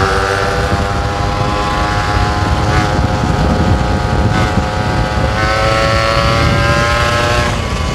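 Yamaha RX 135's single-cylinder two-stroke engine running while riding, its pitch climbing slowly over the last few seconds as the bike gains speed, with wind rumble on the microphone.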